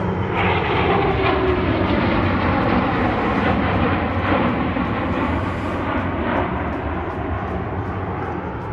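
An airplane's engine noise as it passes by, its pitch gliding down over the first couple of seconds, then a steady rush that eases slightly near the end.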